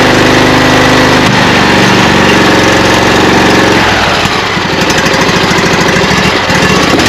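Craftsman lawn tractor's 24 hp Briggs & Stratton V-twin engine running just after starting. It doesn't sound like it is running on both cylinders: a misfire, with one cylinder not firing. The engine note drops and turns rougher about four seconds in.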